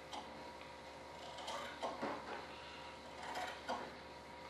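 Faint scrapes and taps of hand work on a fiberglass mold at a workbench, coming in a few short bunches, over a steady low hum of shop equipment.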